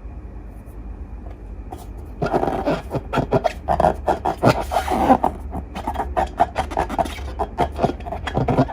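Slime being squeezed and worked by hand: a quick, irregular run of sticky clicks and crackling squelches that starts about two seconds in, after a faint low hum.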